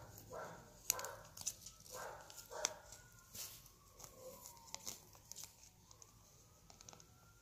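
A dog barking several times in the background in the first few seconds, then a faint siren wailing slowly up and down. Small clicks and rustles of a paper ruler strip handled against acrylic fingernails.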